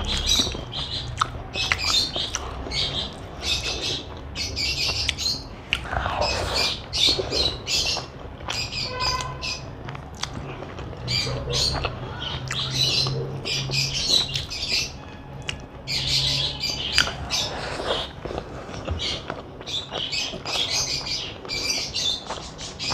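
Close-miked chewing and mouth sounds of someone eating: short, crisp, wet smacks repeating a couple of times a second, over a steady low hum.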